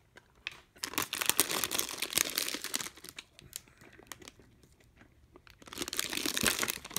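Chocolate bar wrapper, foil and paper sleeve, crinkling as it is handled, in two spells: one starting about a second in and lasting a couple of seconds, another near the end.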